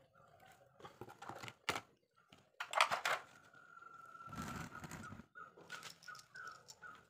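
Hands packing grease into a tapered roller bearing from a plastic packet: crinkling plastic and sticky handling noises, loudest as a cluster of sharp clicks about three seconds in. In the background a high chirp repeats about three times a second near the end.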